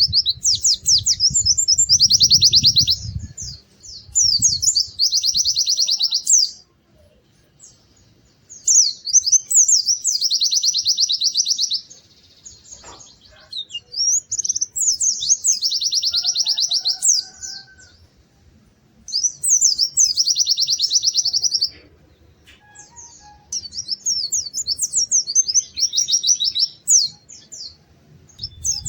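White-eye (pleci) singing: repeated phrases of fast, high trills and chips, each a second or two long with short pauses between. A low rumble sits under the song in the first few seconds.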